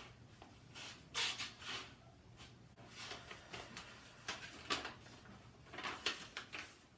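Clothing being handled: fabric rustling and soft handling noises in several short bursts.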